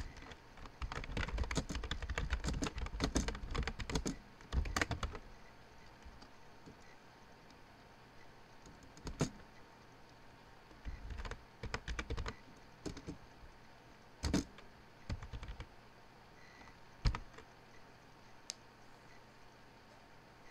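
Computer keyboard typing. A fast, dense run of keystrokes fills the first five seconds, then come short runs and single key presses with pauses between them.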